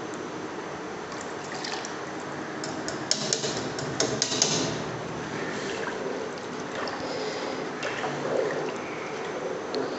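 Gram-flour and buttermilk batter pouring from a bowl into a steel pot of water, with sharp clinks of the whisk and utensils against the pot a few seconds in, then a wooden spoon stirring the thin liquid in the pot.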